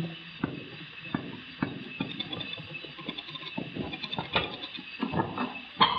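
Irregular sharp clicks and knocks of plastic parts being handled and clipped into place by hand, roughly one or two a second, busier about four to five seconds in.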